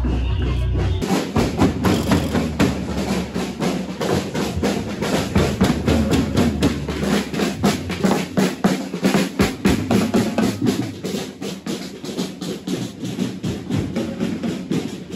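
A group of street drummers beating marching drums in a fast, steady rhythm, starting about a second in.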